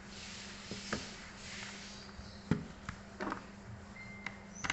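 Scattered plastic clicks, knocks and a sliding scrape as a Dell Inspiron Mini 1018 netbook's case is handled and its battery taken out, the sharpest knock about halfway through, over a steady low electrical hum.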